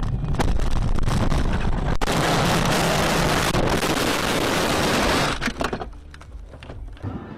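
Car collision recorded from inside a dash-cam car: a sharp impact about two seconds in, then about three seconds of loud crash noise that cuts off suddenly, followed by a few faint knocks. A low engine drone runs before the impact.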